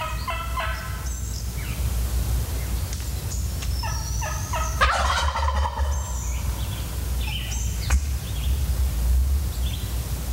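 Hen turkey yelps on a turkey call, two short series of notes, answered by a wild turkey gobbler's rattling gobble about five seconds in, cutting in as the calling ends. Faint songbird chirps in the background.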